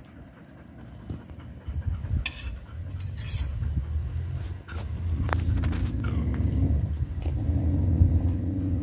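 Small dogs licking and eating meat off a metal spoon, with a few sharp clinks of the spoon against a stainless steel bowl. A low rumble of handling noise grows louder over the second half.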